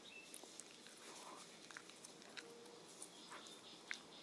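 Faint, scattered clicks and rustles from a nature documentary's soundtrack as a nine-banded armadillo roots in the soil, heard through a television speaker across a room.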